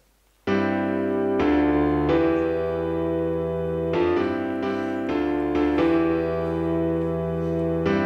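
FL Keys software piano in FL Studio playing back a recorded, quantized pattern of sustained chords over a bass line, changing chord every half second to two seconds. It starts about half a second in.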